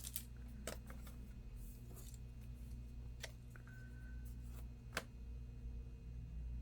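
A few sparse, faint clicks from a laptop being handled, likely keys or the case, over a low steady hum. A brief faint high beep sounds a little past the middle.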